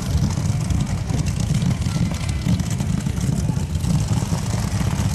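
Modified class pulling tractor's supercharged racing engines idling with a loud, steady, choppy rumble, held at low revs while the tractor stands hooked to the sled at the start line.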